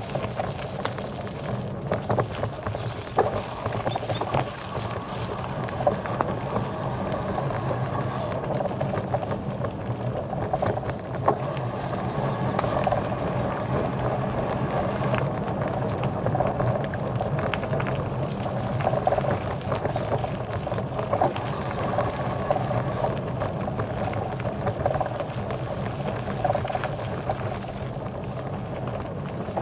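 Bicycle ride on a road: a steady rolling noise with frequent small clicks and rattles.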